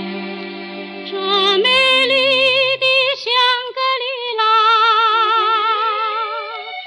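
Background song: sustained accompaniment, then a woman singing long held notes with wide vibrato, starting about a second and a half in.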